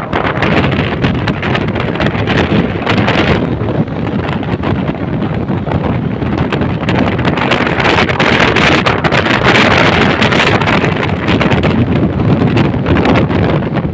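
Heavy wind buffeting the microphone from the open door or window of a moving passenger train, over the train's steady running noise. It gets a little louder about eight seconds in.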